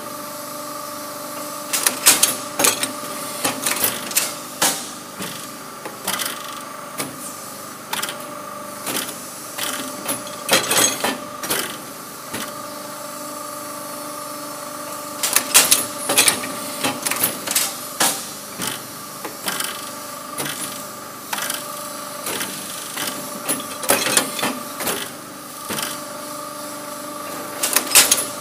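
Automatic chain-making machine running: a steady mechanical hum under repeated sharp metallic clacks as its tooling forms steel chain links. The clacks come in irregular clusters, with a few calmer seconds midway.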